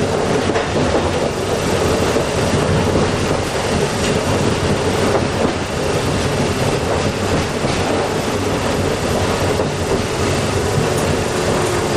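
Fukui Railway F10-class streetcar running on its rails, a steady rumble and rattle of wheels on track. A faint whine drops slightly in pitch near the end.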